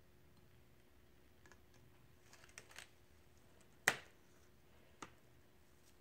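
A few small clicks and taps from hand tools being handled on the work surface, the loudest a single sharp tap about four seconds in and a lighter one a second later, over a faint steady hum.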